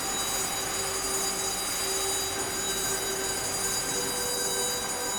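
Sawmill machinery running in a steady din: a dense mechanical noise with several constant high-pitched whines over it.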